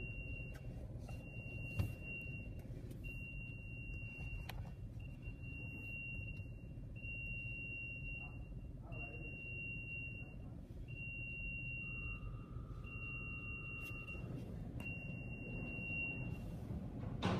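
An electronic warning beep: a long, high, steady tone that repeats about every two seconds and stops near the end, over a steady low rumble in a tunnel car wash. A second, lower tone sounds briefly partway through, and there is a sharp click at the very end.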